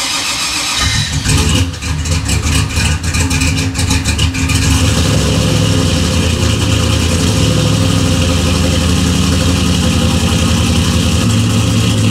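Cold start of a turbocharged LS V8 running on E85, heard through its new stainless single-into-dual exhaust. The engine catches about a second in and runs unevenly for a few seconds. It then settles into a steady cold idle.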